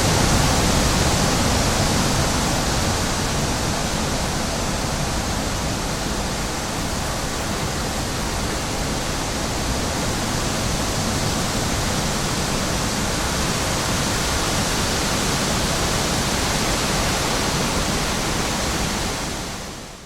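Wind blowing as a steady, even rushing with little gusting; it eases slightly in the first few seconds and fades out near the end.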